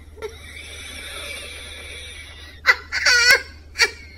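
A woman laughing: a long breathy stretch, then a few loud, high-pitched bursts of laughter a little under three seconds in.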